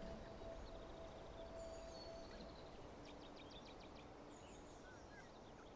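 Faint outdoor ambience: distant small birds chirping, with a quick run of rapid notes in the middle, over a low rumble.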